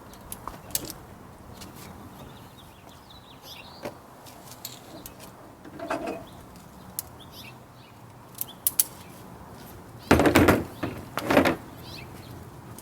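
Self-retracting ratcheting tie-down strap mechanism being worked: scattered single clicks, then two loud short bursts of ratchet clatter a second apart near the end.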